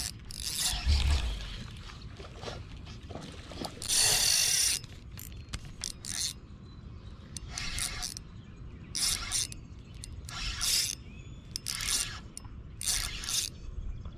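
Shimano Stradic FL spinning reel being cranked in short spurts, a whirring of its gears every second or so, with a louder, longer burst about four seconds in.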